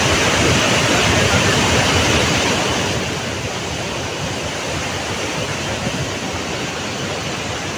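Flash-flood river in full spate after a cloudburst: a loud, steady rush of churning muddy water, easing slightly about three seconds in.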